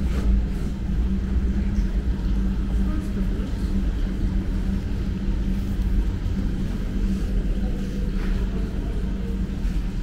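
Steady low machine hum, one constant tone over a deep rumble, with no breaks.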